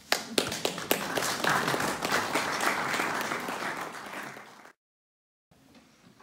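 Audience applauding: a few sharp claps, then a full round of clapping that cuts off abruptly about three-quarters of the way through, followed by faint room tone.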